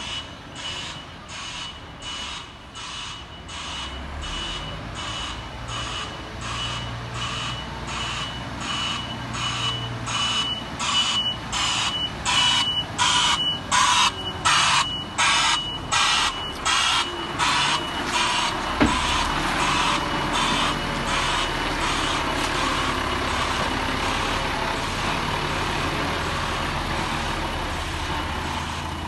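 Reversing alarm on a grab lorry (tipper truck with loading crane) sounding as it backs up: evenly spaced hissing pulses, about three every two seconds, over the diesel engine running. The pulses grow loudest midway as the truck comes close, then fade out, leaving the engine.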